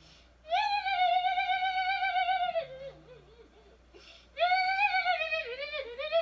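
A single high singing voice, likely a woman's, holds a long note with vibrato for about two seconds, pauses, then sings another held note that breaks into a quick run of shorter notes near the end.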